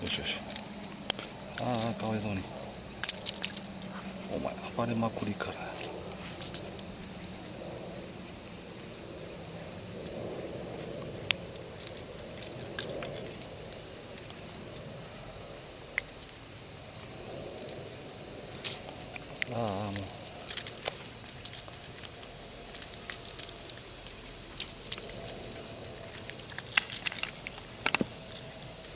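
Steady high-pitched chirring of an insect chorus from the trees around the pond, unbroken throughout. A few sharp clicks and three short low calls, at about 2, 5 and 20 seconds in, sound over it.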